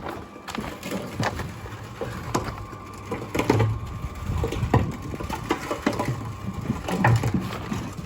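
Irregular knocking, clattering and thudding, as of materials being handled and struck on a building site.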